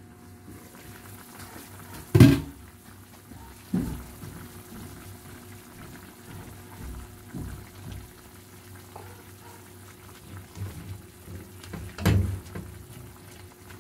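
Pot of soup simmering, with a sharp clank about two seconds in as the glass lid comes off, a few softer knocks as leaves go in, and a spatula knocking against the pot near the end.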